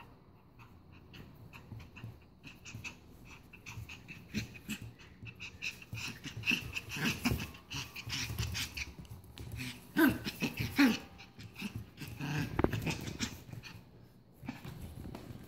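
Poodle puppy growling in short bouts while tugging on a plush toy, with two louder sounds that fall in pitch about ten seconds in.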